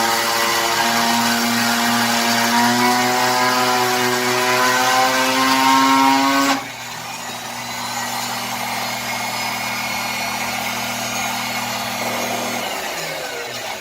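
Woodworking power tool cutting a groove in wood, its pitch creeping up under load. About halfway through the cutting sound stops abruptly and the motor runs on more quietly. Near the end it is switched off and winds down.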